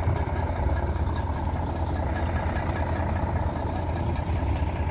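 Diesel truck engine idling nearby: a steady low rumble.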